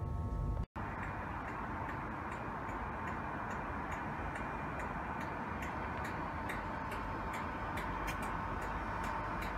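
InterCity 225 train standing at the platform: a steady electrical hum with a faint whine, and light irregular ticking that grows more frequent. It follows a sudden cut, less than a second in, from the low rumble and tones of the moving train.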